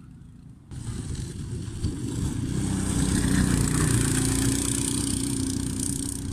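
Cyclekart's small single-cylinder engine running as the kart passes close by on a dirt-and-straw track. It comes in suddenly just under a second in, grows louder to a peak about three to four seconds in, then fades as the kart pulls away.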